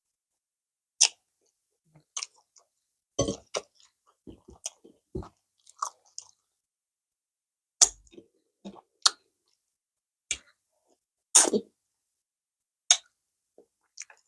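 Close-miked chewing of food in the mouth, with short wet clicks and smacks at irregular intervals.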